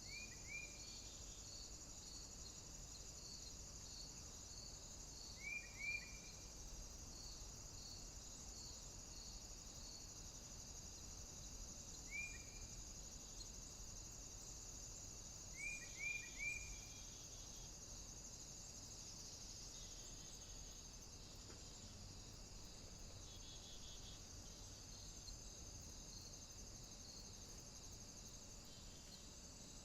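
Nature ambience of crickets and insects chirping steadily. One chirp pulses about once a second through the first half, and a few short falling calls come in twos and threes.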